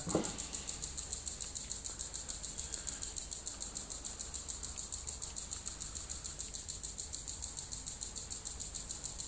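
Steady, rapid, high-pitched ticking, about ten ticks a second, keeping an even pace.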